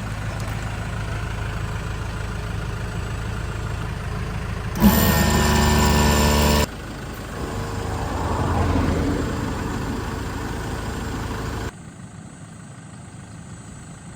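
Land Rover Defender's engine running while driving, a steady drone in several clips that change abruptly. A louder, stronger-pitched stretch lasts about two seconds, starting about five seconds in, and the sound drops much quieter near the end.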